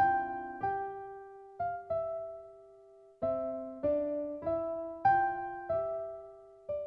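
Background piano music: a slow melody of single struck notes, each ringing and fading out. There is a short pause between phrases about two to three seconds in.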